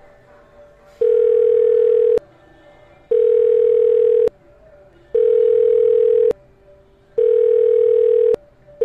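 Telephone call tone heard on the line of an outgoing call that is not going through: a steady mid-pitched beep about a second long, repeated every two seconds or so, four full beeps with a fifth starting at the very end.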